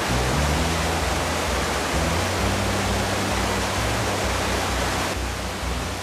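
Steady rush of a mountain stream's white water tumbling over rocks below a waterfall, with low sustained music tones underneath that shift pitch every second or so. The water sound changes slightly about five seconds in.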